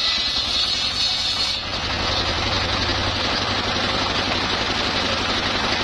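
Homemade circular saw bench powered by a single-cylinder diesel engine: the blade rips a board lengthwise with a high whine for about the first second and a half, then the cut ends and the blade and engine run on freely with a steady low chugging.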